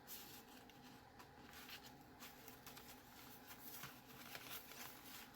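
Near silence with faint paper rustling and light ticks as the pages and paper tags of a handmade junk journal are handled.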